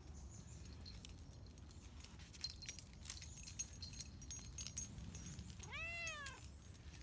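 A grey tabby cat gives one short meow near the end, rising then falling in pitch. Scattered light clicks and jingles come before it.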